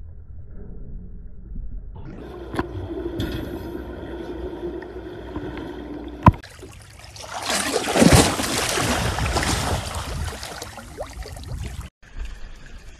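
Water noise from underwater footage: a low rumble, then a steady hiss of moving water, a sharp click about six seconds in, and a loud rush of churning water for several seconds. Near the end the sound cuts to quieter water lapping.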